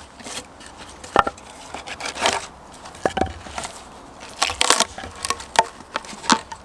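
Wood being chopped with an axe: irregular sharp knocks, some followed by a longer cracking, splintering sound.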